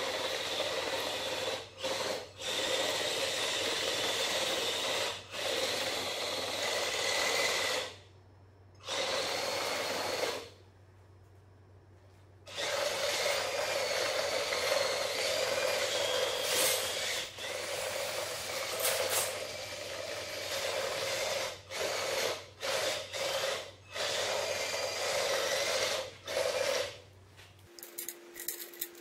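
Two 12 V 555 reduction-gear DC motors driving a metal RC tank along its motorcycle-chain tracks under remote control. They run in stretches that stop and restart many times, with two longer pauses about a third of the way in.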